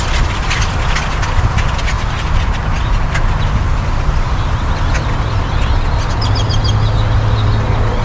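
A huge flock of birds calling overhead: a dense din of short chattering calls and clicks, with a brief run of quick high notes about six seconds in. A steady low rumble sits beneath it and grows heavier from about six seconds in.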